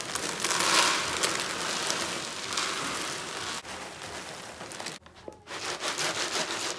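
Iris Ohyama flushable hinoki-and-okara cat litter pellets poured from a plastic bag into a plastic litter tray in a steady grainy rush. About five seconds in the pouring stops, and the pellets rattle as the tray is shaken to level them.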